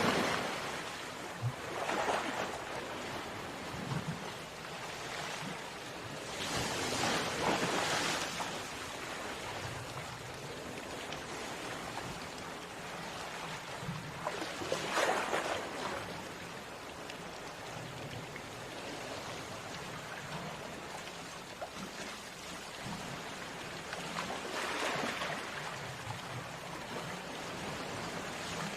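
Sea waves on a shore: a steady hiss of surf, with a wave surging up and washing in four times, spaced several seconds apart.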